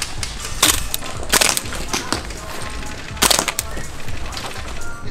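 Airsoft rifle fired in single shots at an uneven pace, about five sharp cracks, over background music with a steady bass.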